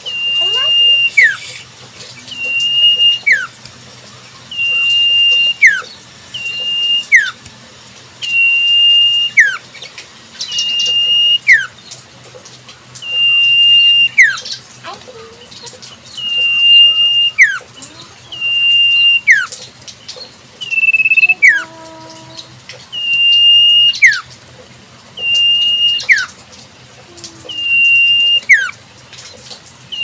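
Common iora (cipoh) repeating its 'sirtu' whistle about every two seconds: a long, steady, high note that ends in a quick falling slur.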